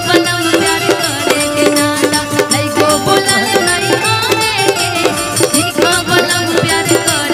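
Live Bhojpuri folk-style stage band playing, with quick, even drum strokes under sustained melodic notes.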